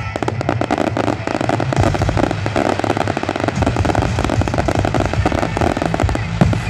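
Fireworks display in a rapid barrage: many sharp bangs and dense crackling reports overlapping one another, from white crackling shell bursts.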